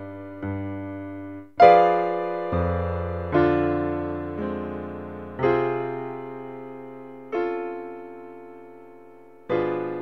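Slow solo piano music: single notes and chords struck every second or two and left to fade, the loudest chord coming about one and a half seconds in.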